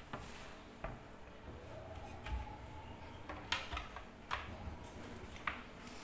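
Light knocks and clicks, about five spread over a few seconds, as a blue plastic drilling jig is set against a wooden cabinet door and the door is swung open.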